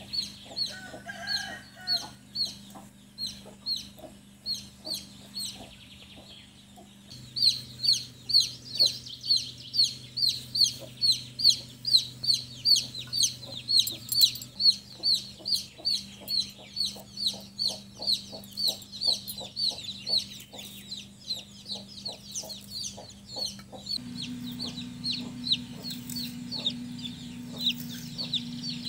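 A chick peeping steadily and rapidly, about two short, sharp, falling peeps a second.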